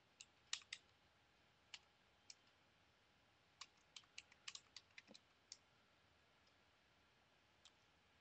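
Computer keyboard keys clicking as a short command is typed: a few scattered keystrokes, then a quick run of about ten in the middle, and one more near the end. The clicks are faint against near silence.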